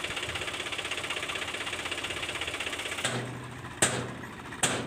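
Swaraj 744 tractor's three-cylinder diesel engine running with a fast, even beat. About three seconds in the sound changes to a lower, steadier hum, and two sharp knocks come near the end, about a second apart.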